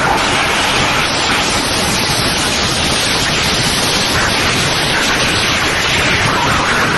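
Strong wind from a sandstorm rushing over the microphone: a loud, steady noise.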